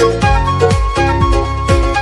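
Background pop song in an instrumental stretch without vocals: sustained synth or instrumental notes over a steady beat, with a kick drum about twice a second.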